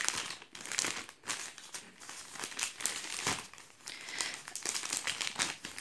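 Thin plastic gift bags crinkling and rustling irregularly as hands handle and open them.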